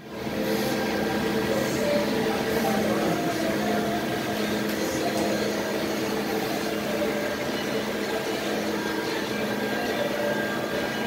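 Powered-up Gildemeister CTX 400 E CNC lathe running idle: a steady machine hum made of several held tones over a constant whir.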